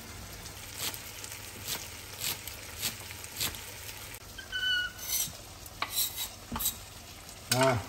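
Kitchen knife chopping green onions on a wooden cutting board, a sharp chop about every half second, over a low steady sizzle from the frying pan. A short high squeak comes about four and a half seconds in, and a brief, louder vocal sound near the end.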